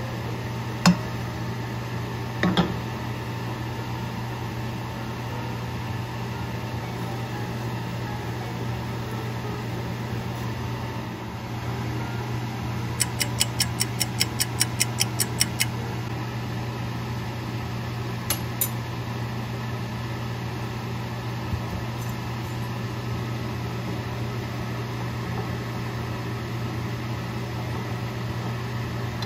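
Steady low mechanical hum in a kitchen while sugar heats in a frying pan on a gas burner. A sharp clack about a second in as the pan is set down on the stove grate, another knock a second or so later, and a quick even run of about ten light ticks around the middle.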